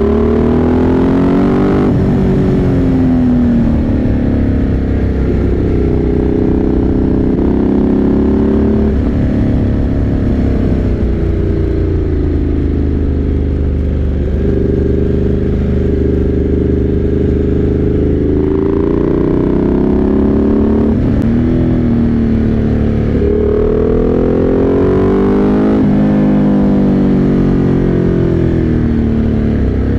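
Motorcycle engine under way, its pitch climbing with the revs, dropping back at each gear change and easing off several times, over a steady low rumble.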